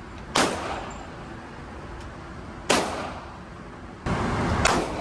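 Gunshots at an indoor shooting range: three sharp reports about two seconds apart, each with a short echo off the enclosed range. A louder stretch of noise starts about four seconds in, just before the third shot.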